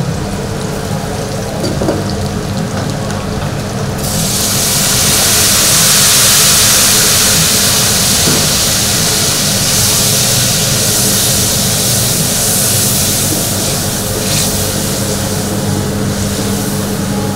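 Sauce sizzling in a hot pan: a loud hiss starts suddenly about four seconds in, is strongest shortly after, then slowly eases. It sits over a steady kitchen hum.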